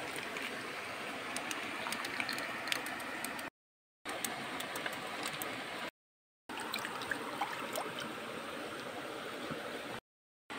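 Running stream water with light splashing and small clicks as hands rinse peeled boiled eggs in a clay pot of water. The sound cuts out to dead silence three times, briefly each time.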